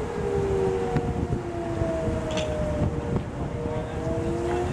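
Outdoor civil-defense warning sirens wailing, the pitch sliding slowly down and rising again near the end, over wind rushing on the microphone.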